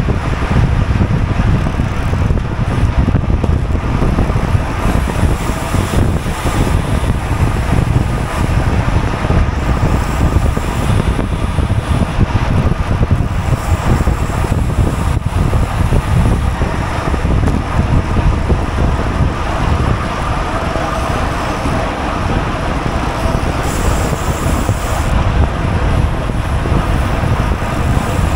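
Steady wind noise buffeting a GoPro's microphone on a racing bicycle, with road and tyre noise beneath.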